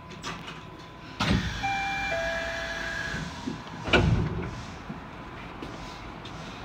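Suspended monorail car's sliding doors working at a station stop: a sudden rush of sound about a second in, with a few short steady tones, then a loud thump about four seconds in.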